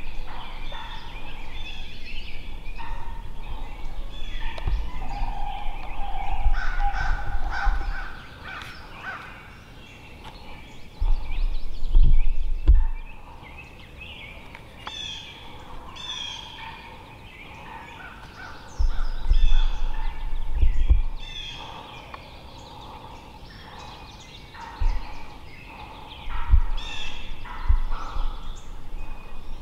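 Wild turkey gobblers gobbling again and again through the woods. Loud low rumbles on the microphone come and go several times.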